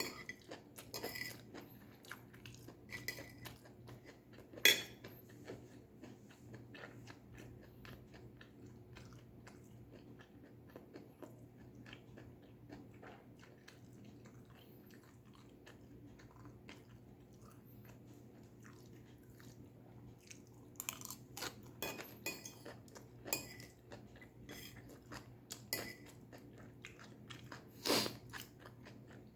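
A person chewing and crunching stir-fried vegetables, wet chewing broken by sharper crunches. The loudest crunch comes about five seconds in, and a busier stretch of crunching comes near the end.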